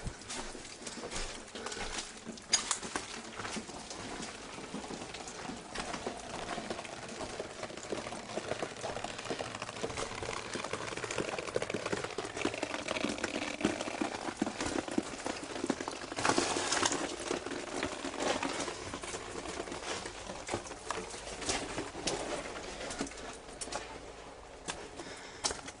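Pigeons cooing, with irregular clicks and knocks, like footsteps on debris, throughout.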